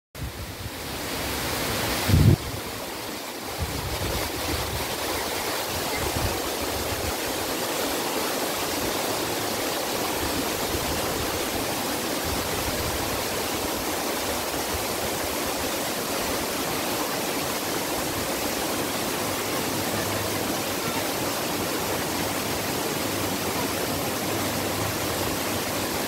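Small stream cascading over rocks, a steady rush of water that fades in over the first two seconds. A brief low thump, the loudest moment, comes about two seconds in.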